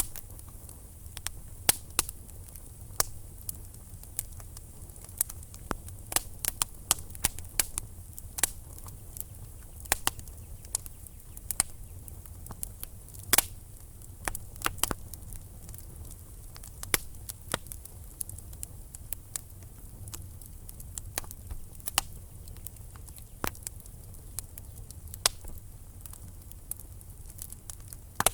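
Wood fire burning in a fireplace: logs crackling and popping with many irregular sharp snaps over a steady low rumble of flame. One louder pop comes about halfway through.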